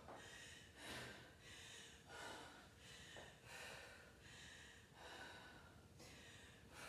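A woman breathing hard, faint quick breaths in and out one after another: catching her breath after a hard set of exercise.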